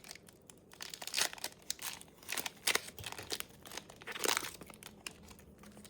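Foil Pokémon booster pack wrapper crinkling and tearing as it is ripped open, a run of sharp crackles that are loudest about a second in and again past four seconds.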